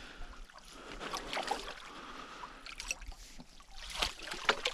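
Water splashing in irregular bursts as a hooked carp thrashes at the surface and a landing net is dipped into the water, the sharpest splashes coming near the end.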